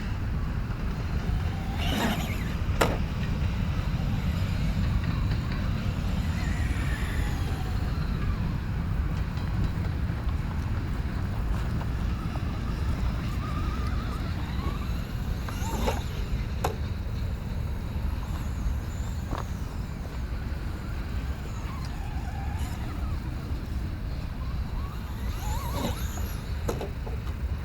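Steady wind rumble on the microphone, with an electric RC truck's motor faintly whining up and down as it drives and several sharp knocks from the truck hitting the ramp or landing.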